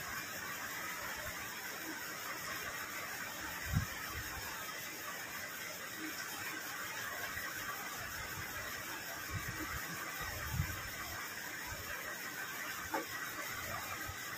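Steady hiss under quiet eating sounds: rice being mixed and eaten by hand, with a soft thump about four seconds in and another near eleven seconds.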